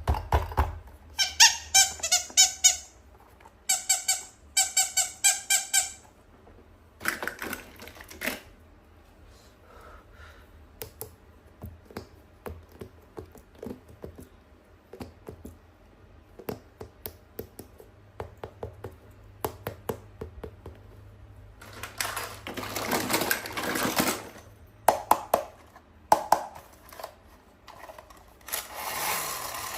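Toys and packaging being handled: two quick runs of high-pitched squeaks in the first seconds, then scattered clicks and taps, with rustling stretches later on.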